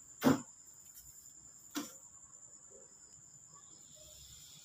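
Cricket trilling faintly and steadily on one high note. There is a short loud thump about a third of a second in and a smaller click just under two seconds in.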